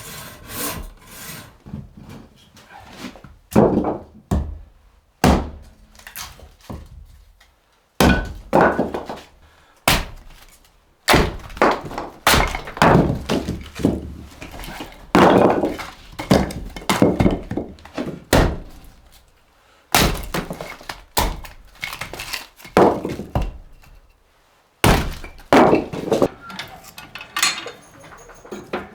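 Axe splitting firewood: repeated chopping thunks and the crack of logs breaking apart, a second or two apart.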